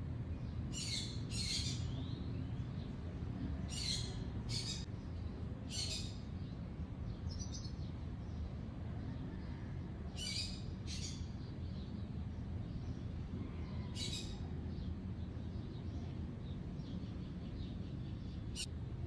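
Short, high-pitched bird chirps, singly or in quick pairs and scattered irregularly, over a steady low outdoor rumble.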